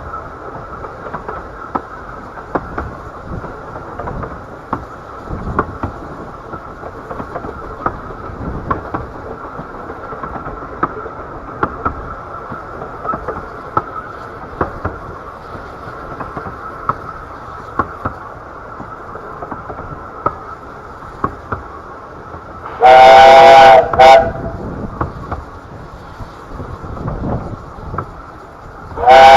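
Bure Valley Railway 15-inch gauge steam train running, a steady rumble with frequent clicks from the rail joints. Near the end the locomotive sounds its chime whistle loudly: one long blast and a short toot, then another long blast begins.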